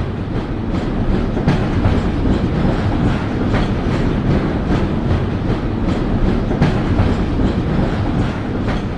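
Railway train rolling along the track: a steady rumble with the clickety-clack of wheels over rail joints.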